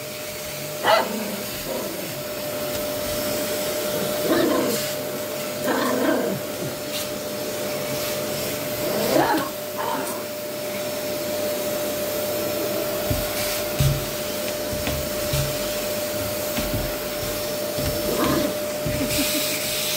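Vacuum cleaner running with a steady hum, while a Pomeranian barks at it several times. There are a few low bumps about two-thirds of the way through.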